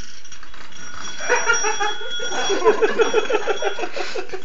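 Electric doorbell stuck on, ringing continuously at an even level: its ringer has jammed and it cannot be switched off. From about a second in, a person laughs in quick bursts over the ringing.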